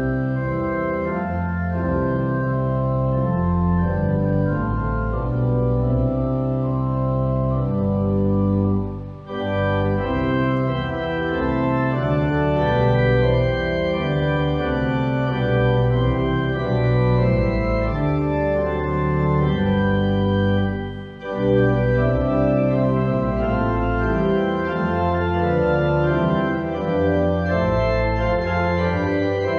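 Organ playing slow sustained chords over deep bass notes, with two short breaks between phrases, about nine seconds in and again about twelve seconds later.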